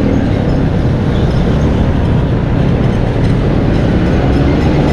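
Steady rumble of a vehicle on the move: a low engine drone under road and wind noise.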